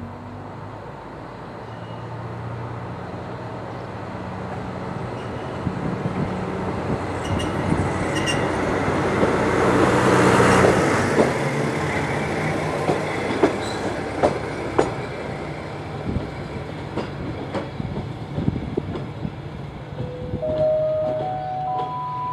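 Kanto Railway KiHa 2001 diesel railcar passing close by at low shunting speed: its engine drone swells to a peak about ten seconds in, then fades, with wheels clicking over rail joints and points. Near the end a few short tones sound, each higher in pitch than the last.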